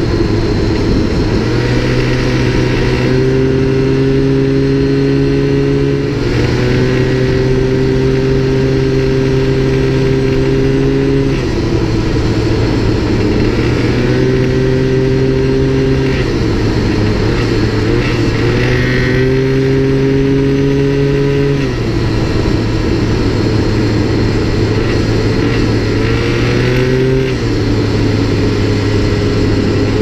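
Minarelli two-stroke scooter engine running on the road at part throttle, its note shifting up and down several times as the throttle changes, with a high-pitched rattling, ticking ping at times: spark knock (detonation).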